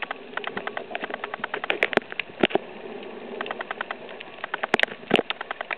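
Dense, irregular crackling and clicking heard underwater on a coral reef, with a few sharper, louder cracks about two seconds in and again near the end. It is the kind of crackle typical of snapping shrimp on a reef.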